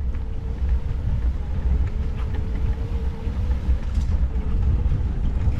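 Off-road handcycle rolling along a dirt trail: steady low rumble of tyres and wind buffeting the microphone, with a faint steady whine through the first half that fades out.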